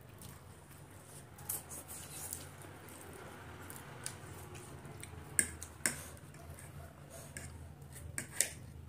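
Metal forks clinking and scraping on ceramic plates while noodles are twirled and eaten, a scatter of sharp clicks with the loudest a little over five seconds in and a pair just after eight seconds.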